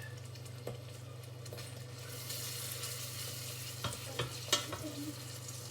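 A spoon stirring a butter, honey and sugar mixture as it sizzles in a pan on the stove, the butter still melting. The sizzle grows louder about two seconds in, and the spoon knocks against the pan three times near the end.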